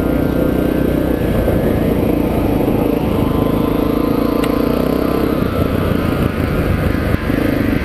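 Honda XR650R's single-cylinder four-stroke engine running steadily under way on a dirt trail.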